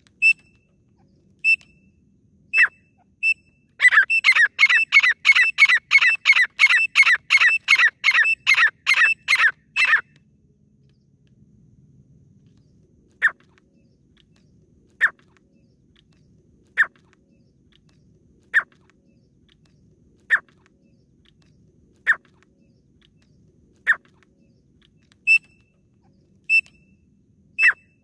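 Caged grey francolin (teetar) calling: a few short notes, then a rapid run of falling whistled notes, about four a second for some six seconds. After a pause come single falling whistles about every two seconds, and a few short notes near the end.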